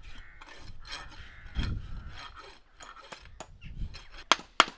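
Irregular scraping and rubbing at a horse's hoof, then a few sharp farrier's hammer taps near the end, driving nails into a horseshoe.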